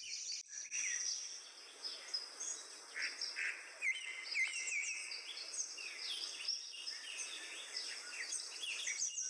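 Several small birds chirping and calling in quick, short notes, over a faint steady outdoor hiss.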